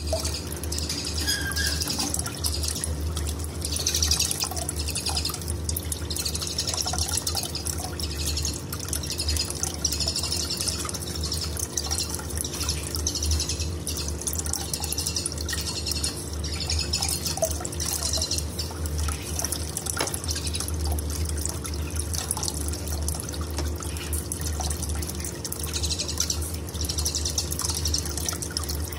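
Tame starlings (Asian pied starling and black-winged starling) calling in repeated short bursts, over a steady low hum.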